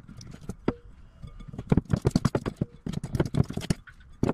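Metal fork mashing firm butter in a glass bowl: a single click, then from about a second and a half in a fast run of knocks and clinks as the tines strike the bowl.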